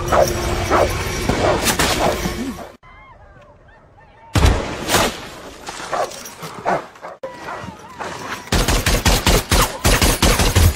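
Battle sound effects: a dense din of combat noise, a brief hush, then one sharp crack of a shot about four seconds in. Near the end, rapid automatic rifle fire starts up, shot after shot in quick succession.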